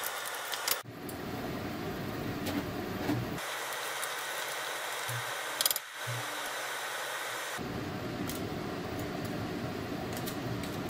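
Clams, squid rings, scallops and mussels simmering in clam juice in a frying pan, a steady sizzle and bubble while the clams cook open, with one brief click about halfway through.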